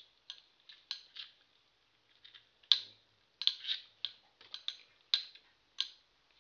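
Two spinning Metal Fight Beyblade tops clashing in a plastic stadium: a run of sharp, irregular clicks from their metal wheels striking, sparse at first and coming a few a second from about a third of the way in, one louder hit among them. These are soft, glancing hits.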